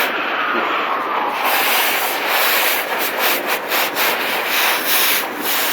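Scrubbing: a stiff scrub brush rasping back and forth over a hard surface, with repeated strokes growing sharper after the first second or so, as dog urine stains are scrubbed out.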